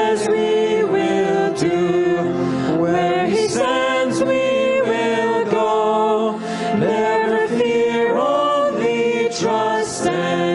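A small mixed group of men's and women's voices singing a hymn together in harmony through the church's sound system, with long held notes.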